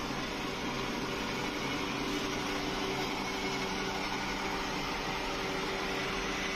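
Robot vacuum cleaner running with a steady whirring hum of its suction motor.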